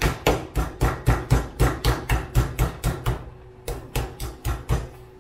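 Meat mallet pounding a turkey breast under plastic wrap on a cutting board to flatten it, rapid even blows at about five a second. The blows pause briefly just after three seconds in, resume for about a second, then stop near the end.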